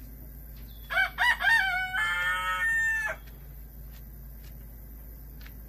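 A rooster crowing once: a cock-a-doodle-doo of about two seconds, starting about a second in, with a few short bending notes followed by a long held final note.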